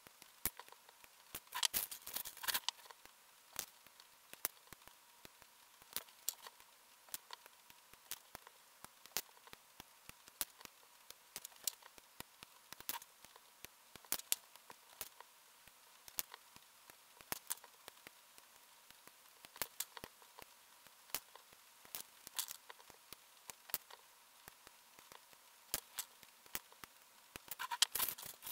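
Sharp little clicks and taps of plastic model-kit parts and hand tools being handled on a wooden table, irregular, a few a second, with short bursts of rattling about two seconds in and again near the end.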